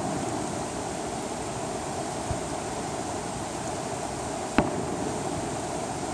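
A single sharp bang of a distant aerial firework shell bursting, about four and a half seconds in, with a fainter knock a little after two seconds, over a steady background hiss.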